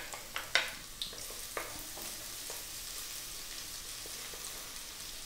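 Minced garlic sizzling in hot cooking oil in a wok. Several light knocks of a wooden spatula against the bowl and pan come in the first couple of seconds as the garlic is scraped in and stirred.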